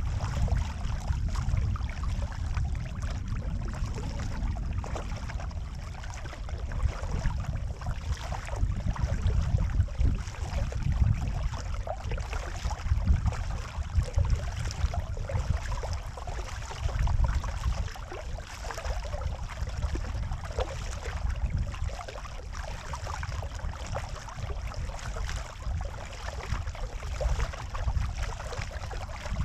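Water swishing and splashing along a kayak's hull as it is paddled, over an uneven low rumble.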